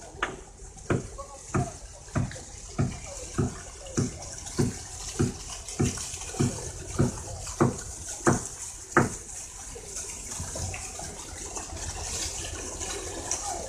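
Muddy water gushing out of a large steel pipe outlet and splashing onto the ground as the newly fitted valves are tested. Over the first nine seconds about fifteen evenly spaced knocks come roughly every 0.6 s, then only the water is heard.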